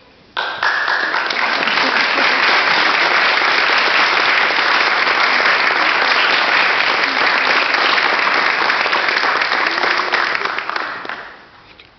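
Audience applauding in a hall, breaking out suddenly about half a second in, holding steady, then dying away near the end.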